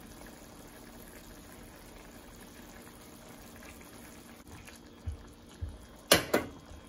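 Chicken and tomato karahi simmering quietly in a nonstick pan on a medium flame, a faint steady bubbling. Near the end, a few low thuds and then two sharp clicks of cooking utensils knocking against the pan.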